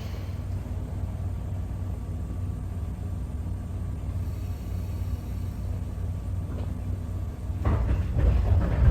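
Low, steady rumble inside the cabin of a Sangi Railway 801 series electric train (ex-Seibu 701 series), with faint steady hums from its equipment. About three-quarters of the way in, the rumble grows louder and rougher, with some knocks.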